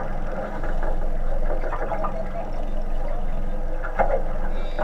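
A boat's engine running steadily, mixed with rushing wind and water noise, with a single sharp knock about four seconds in.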